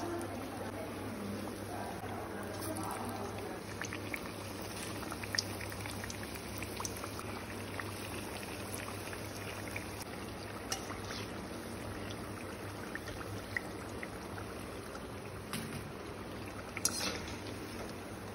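Batter-coated bajji fritters deep-frying in hot oil: a steady sizzle with scattered small pops and crackles, and one sharper crackle near the end.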